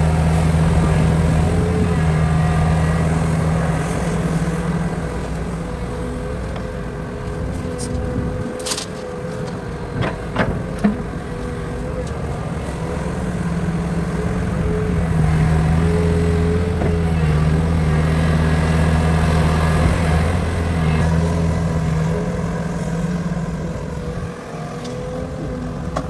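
Engine of a heavy road-construction machine running steadily, its low note easing off for a while in the middle and coming back strongly. A few sharp knocks come about nine to eleven seconds in.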